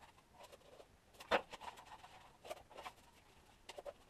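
Faint handling noises: light clicks and taps of small parts being picked up and moved on a workbench, the loudest about a second and a half in and a few quick ones near the end.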